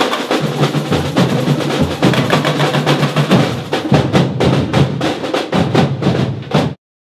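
Brazilian batuque percussion ensemble drumming: dense, rapid hits over deep bass-drum beats. It cuts off suddenly near the end.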